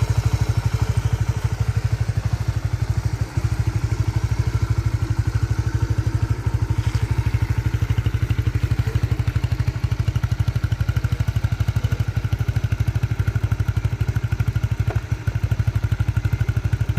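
Honda CB150R's single-cylinder four-stroke engine idling steadily, with a rapid, even pulse.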